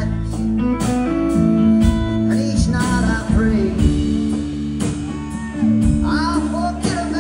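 A live rock band playing a passage without words: electric guitar lines over drums and held bass notes, with a few bent notes about six seconds in.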